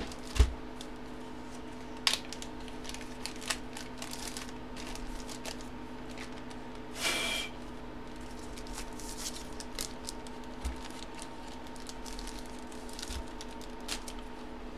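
Sporadic small clicks and rustles of a trading card and plastic bag being handled on a desk, with a low thump about half a second in and a brief scratchy rub about seven seconds in. A steady low electrical hum runs underneath.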